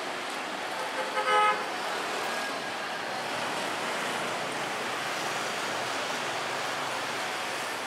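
Steady street traffic with motorbikes and cars passing, and a short vehicle horn toot about a second in, the loudest sound.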